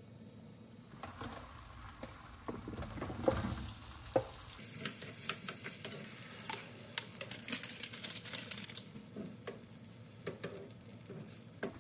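Tteokbokki (rice cakes and fish cakes in sauce) sizzling in a nonstick frying pan while being stirred, with a spatula clicking and scraping against the pan. The sizzle is loudest in the middle stretch.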